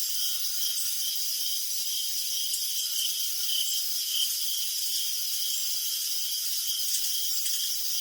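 Crickets chirping in a steady chorus: one repeating chirp about twice a second over a continuous high trill of many others.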